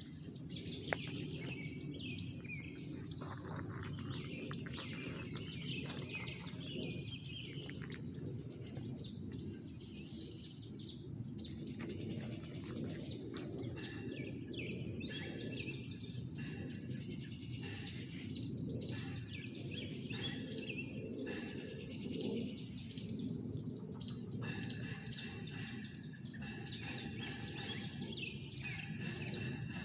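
Several songbirds chirping and trilling at once, over a steady low background rumble, with one sharp click about a second in.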